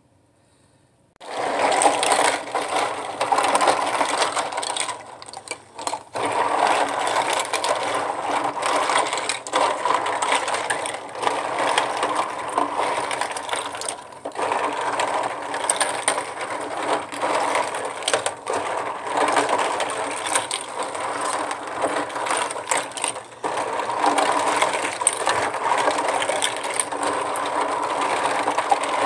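A gloved hand swishing plastic lip gloss tubes and caps around in water in a plastic tub: dense clattering of plastic with water sloshing. It starts about a second in and keeps going, with a few brief lulls.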